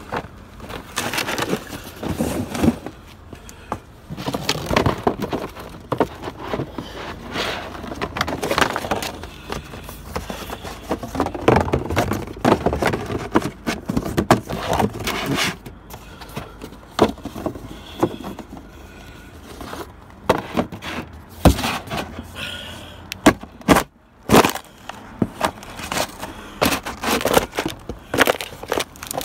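Empty cardboard shoe boxes being crushed underfoot: irregular cracking, creasing and scraping of the cardboard as it folds and flattens, with a few sharper, louder cracks near the end.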